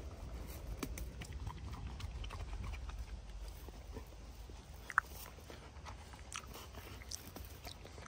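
A pit bull chewing and tearing at blueberry plants: faint, scattered crunching clicks over a low rumble, with one sharper click about five seconds in.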